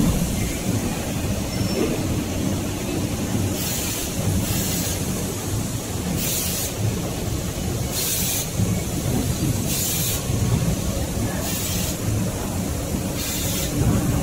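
Facial tissue production line machinery running with a steady mechanical rumble, and a short burst of hiss about every second and three-quarters from a few seconds in.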